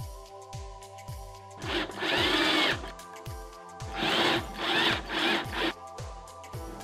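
Ryobi cordless drill driving a screw through the back plate of a wall light into the wall: one run of about a second, then three short bursts near the end as the screw is snugged down.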